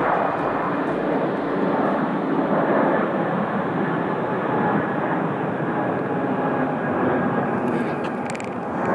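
Airbus A320neo's twin turbofan engines at takeoff thrust as the airliner lifts off and climbs away: a steady jet roar.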